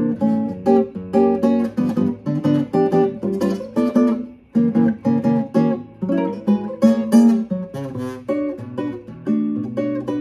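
Spanish-made Jose Antonio 6C nylon-string classical guitar played fingerstyle: a fast passage of quickly plucked notes, with a brief break about four and a half seconds in.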